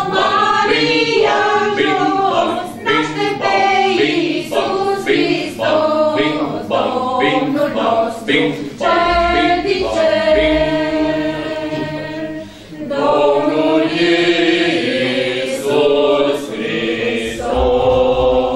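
Mixed choir of children and adults singing a Romanian Christmas carol (colind) unaccompanied, with a brief breath between phrases about two-thirds of the way through.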